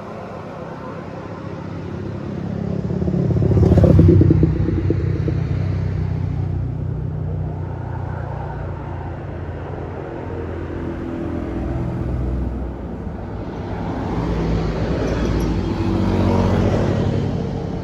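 Road traffic passing: one vehicle swells up and passes loudly about four seconds in, engines then hum on steadily, and another vehicle builds up near the end.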